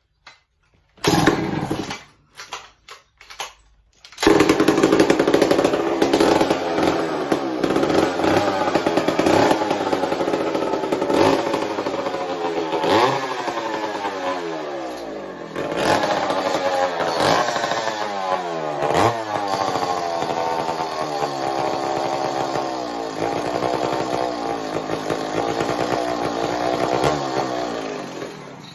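Old yellow McCulloch two-stroke chainsaw being pull-started: a first pull and a few short sputters, then it catches about four seconds in and runs, revved up again and again with the engine note falling back after each blip. The owner says the saw has a carburetor problem.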